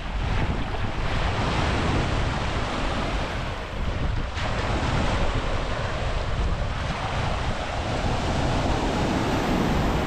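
Sea surf breaking and washing ashore in a steady wash of noise, with wind buffeting the microphone in a low rumble.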